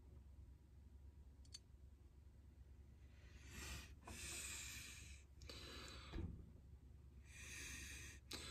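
Near silence with a single light click about one and a half seconds in, then several short, soft hissing rustles in the second half, the faint sounds of measuring with a caliper at close range.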